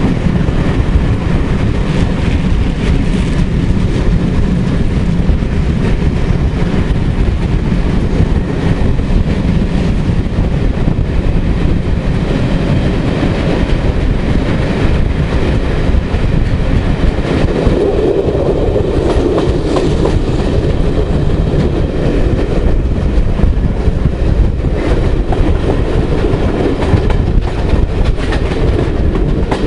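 Steam-hauled train behind Britannia-class locomotive 70013 running at speed, heard from a carriage window: a loud, steady rush of running noise with rapid clickety-clack of the wheels over the rail joints.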